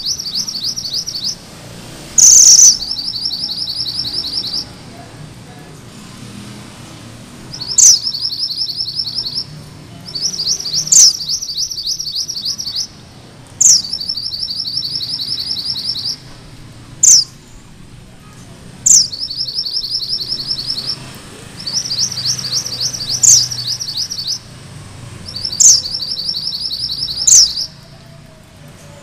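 Caged mantenan gunung merah (red mountain minivet) singing its rolling song. Each phrase is a loud sharp note sweeping down, then a fast high trill lasting one to two seconds, and the phrases come about every two to three seconds.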